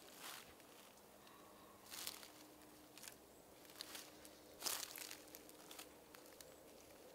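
Faint rustling and snapping of wild garlic leaves being picked by hand, in about six short bursts, the loudest a little past the middle.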